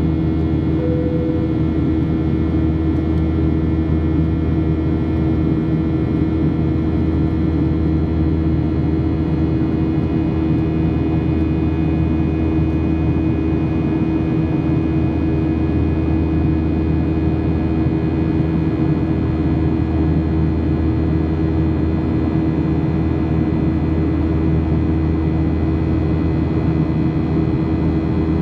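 Boeing 737-800 cabin during climb, its CFM56-7B turbofans at climb power: a steady low rumble of engine and airflow with several steady humming tones over it, the buzzsaw tone of the fan.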